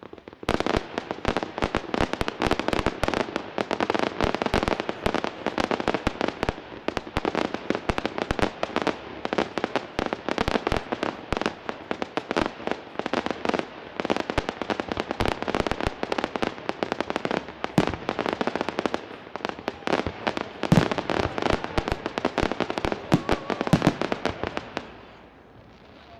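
Fireworks going off in a dense, rapid barrage of cracks and bangs. It starts about half a second in and stops shortly before the end, with a few of the loudest bangs about three-quarters of the way through.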